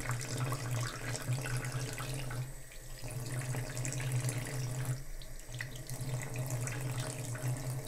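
Thin stream of tap water running into a bathroom sink and over a wet hand, with a steady low hum underneath that drops out briefly twice.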